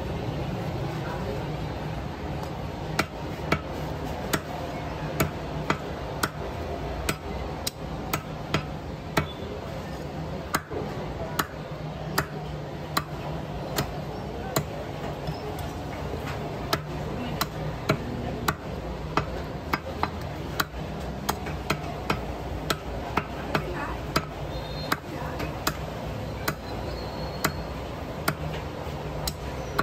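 Heavy cleaver chopping through a country chicken's meat and bone onto a wooden chopping block: sharp, irregular chops about one or two a second, over a steady low background hum.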